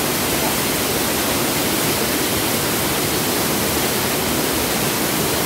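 A waterfall's steady, loud rushing, an even hiss of falling water with no breaks.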